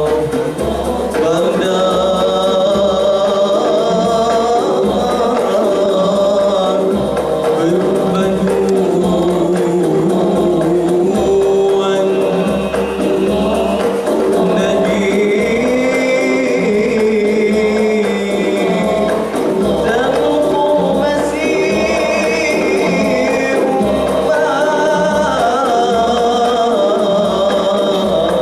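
Nasyid vocal group of male secondary-school students singing a melody together, with hand drums keeping a steady beat underneath.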